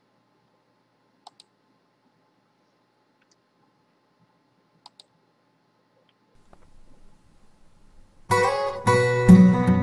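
Two computer mouse clicks, each a quick double tick of press and release, about a second in and about five seconds in. About eight seconds in, strummed acoustic guitar music starts suddenly and is the loudest sound.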